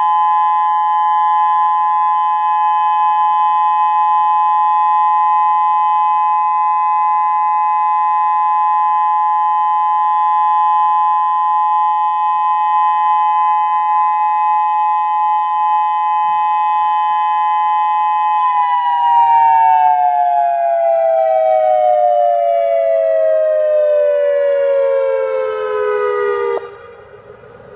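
Outdoor civil-defense warning siren on a tower, sounding its monthly test: a loud, steady two-note tone. About two-thirds of the way through, the pitch starts to fall and glides down steadily for about eight seconds, then cuts off abruptly near the end.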